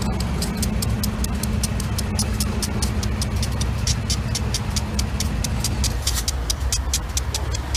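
GE C44-9W and AC4400CW diesel-electric locomotives, V16 engines, running as they pull a heavy train past close by. A deep rumble, with a low steady tone that drops out about six seconds in, and a rapid clicking over the top.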